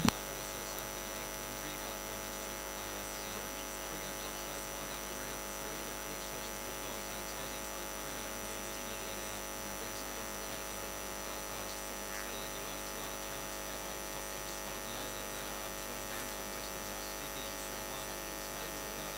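Steady electrical hum and hiss from the broadcast audio line, made of many steady tones that never change; no hoofbeats, engine or crowd can be picked out.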